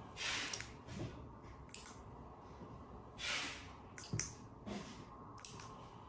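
A few sharp clicks from the remote fob's buttons and the relay receiver switching, with two short breathy hisses between them.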